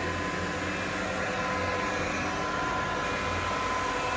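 Maho MH 600 milling machine spindle running free at 1250 rpm: a steady hum with a thin, even whine.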